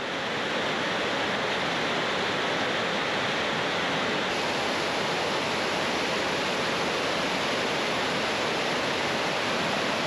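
Steady rush of fast-flowing river water cascading through a narrow rock canyon.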